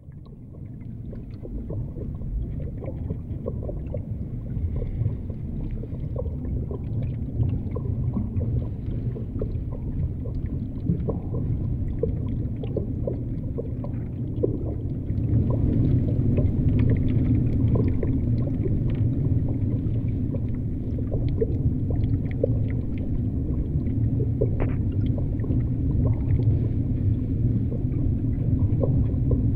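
Underwater ambience: a low, steady rumble sprinkled with small irregular clicks and ticks. It fades in at the start and grows louder about halfway through.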